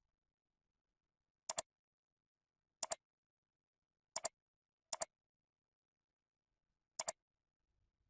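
Computer mouse clicking five times at uneven intervals, each click a quick double tick of button press and release, with silence between.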